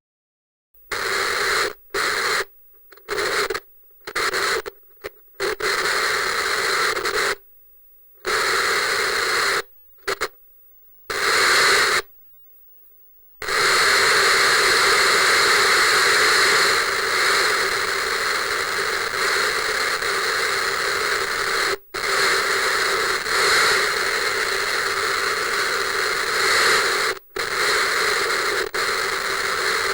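Old analog TV static: a harsh hiss that cuts in and out in short bursts with dead gaps for the first dozen seconds, then runs steadily with a couple of brief dropouts.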